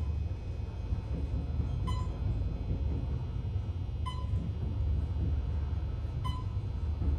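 Otis traction elevator car travelling upward, with a steady low rumble. A short electronic beep sounds about every two seconds, three times, as the car passes each floor.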